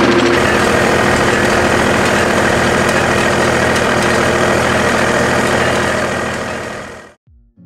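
Zetor 3511 tractor's three-cylinder diesel engine running steadily while it pulls a potato planter. The sound fades out near the end.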